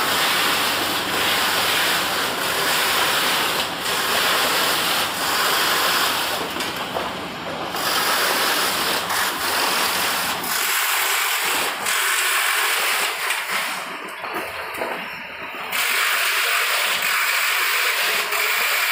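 Small carton packaging line running, with conveyor belts, tape sealer and sticker labeller: a steady hissing machine noise with a faint click roughly every second and a half.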